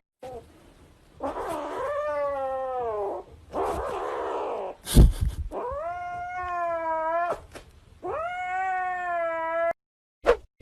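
Domestic cat caterwauling: three long, drawn-out yowls, the first falling in pitch, with a harsh unpitched stretch after the first and a loud thump about five seconds in.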